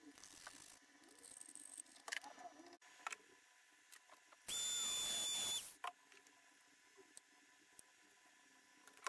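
A small hand-held disc grinder runs in one short burst of about a second, a loud grinding noise with a steady high whine, then stops. Light clicks of parts being handled come before and after.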